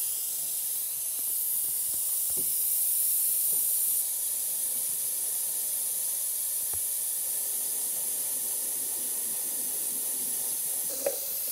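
Workshop vacuum cleaner running with a steady hiss, sucking up the dark oily residue drained from the exhaust expansion chamber of a two-stroke boat engine, with a few faint knocks.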